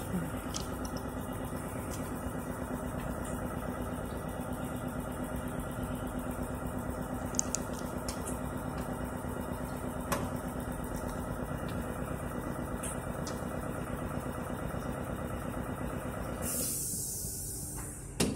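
Air compressor running with a steady mechanical hum. About sixteen and a half seconds in, the hum stops abruptly and a short hiss of air follows, then a single click near the end.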